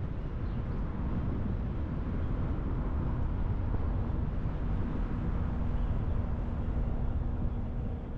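Car driving slowly along a paved road: a steady low rumble of engine and tyres, with a faint steady hum joining about two seconds in.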